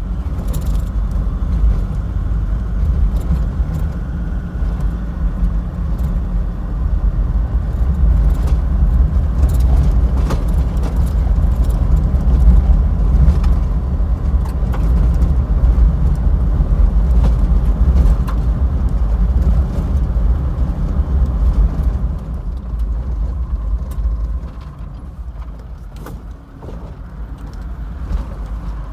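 A 4WD driving on a rough dirt road, heard from inside the cabin: a steady low rumble of engine and tyres, with scattered rattles and knocks from the bumpy track. It eases off and gets quieter about three quarters of the way through.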